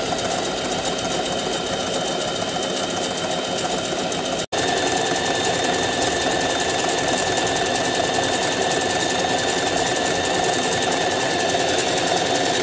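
Singer Facilita Pro household sewing machine running steadily under the foot pedal, stitching a decorative pattern through fabric, with a split-second break in the sound about four and a half seconds in.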